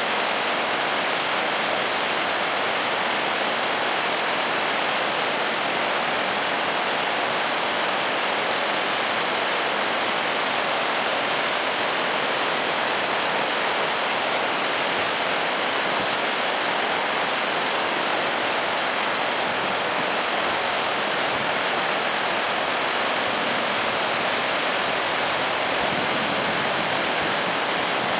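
Swollen river in flood rushing through turbulent white-water rapids: a steady, even rush of water.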